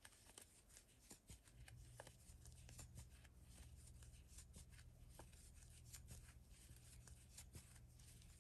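Faint, irregular clicks and rustles of a crochet hook working yarn. A low steady hum comes in about a second and a half in.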